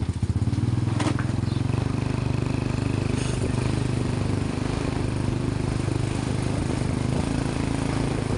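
Habal-habal motorcycle taxi's engine running steadily at a cruising pace, heard from on board.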